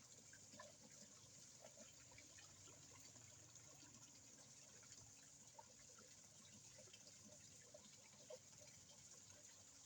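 Faint, steady trickle of water in a koi pond, with scattered small drips and plops.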